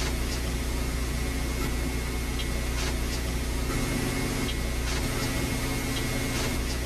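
Steady hiss of an old VHS camcorder recording with a low electrical hum and a faint high steady whine, broken only by a few faint light ticks.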